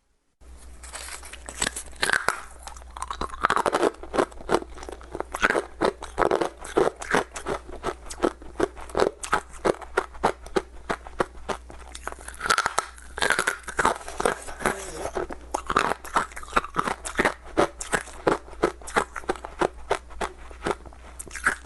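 Ice cubes being bitten and chewed close to the microphone: a dense run of sharp crunches, several a second, starting about half a second in.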